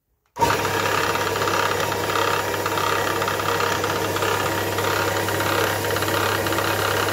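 Electric horizontal bandsaw starting about half a second in and then running steadily, with a constant low hum, as it cuts through EN8 steel bar.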